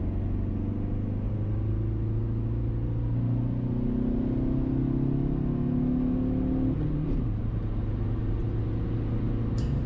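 Stage 3 tuned Volkswagen Polo with a hybrid turbo heard from inside the cabin while driving, with engine drone and road noise. The engine note rises slowly as the car gathers speed, then falls suddenly about seven seconds in and holds steady.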